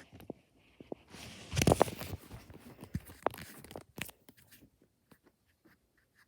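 Rustling and clicking handling noises, loudest about one and a half seconds in, then thinning to a few faint ticks.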